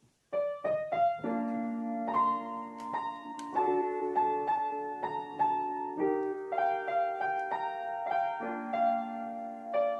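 Background piano music: a gentle melody of single struck notes over held chords, starting just after the opening.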